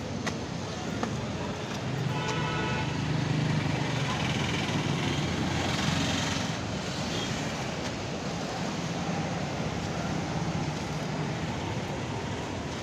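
Steady vehicle and traffic noise with indistinct voices mixed in.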